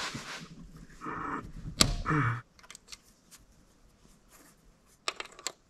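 A few scattered clicks and knocks, the loudest a sharp click about two seconds in, then near quiet and a short run of faint clicks near the end.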